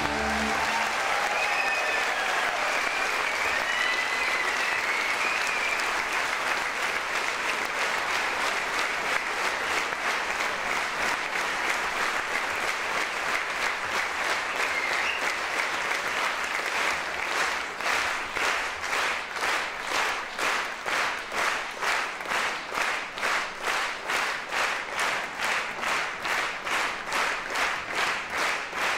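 An audience applauding, with a few high voices cheering in the first several seconds. About seventeen seconds in the clapping falls into unison: steady rhythmic clapping at about two claps a second.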